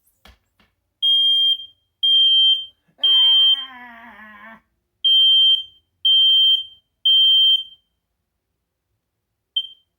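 Smoke alarm under test sounding loud, high-pitched beeps in the three-beep pattern that signals fire: three beeps a second apart, a short pause, then three more. A single short chirp follows near the end.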